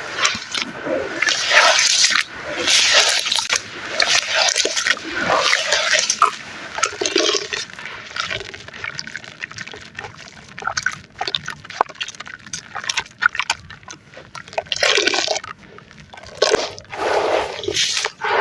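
Wet red sand being crumbled and squished into foamy water: repeated squelching, fizzing bursts about every second, with a stretch of small crackles and clicks in the middle, then louder squelches near the end.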